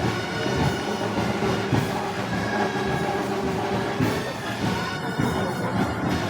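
A festival wind band playing Moros y Cristianos march music, with sustained tones from many instruments at once.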